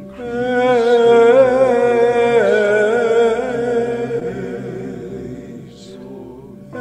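A man's solo chanting voice holding one long sung note with vibrato, stepping down in pitch partway through and fading, followed by an in-breath near the end. A steady drone sounds underneath.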